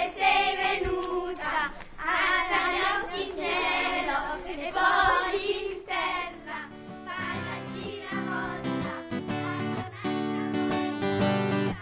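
Children singing a ring-dance song together. About six seconds in, the singing gives way to acoustic guitar music with regular plucked strokes.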